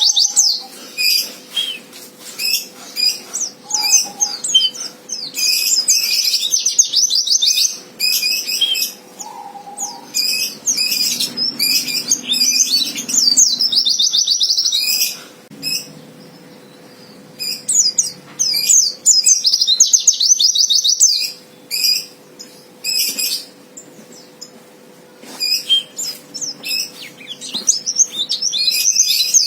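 Pleci (white-eye) singing a fast, high-pitched chattering song in bursts of rapid trills and chirps, broken by a few short pauses. This is the aggressive 'fighter' song used to provoke rival pleci into singing. A faint steady hum runs underneath.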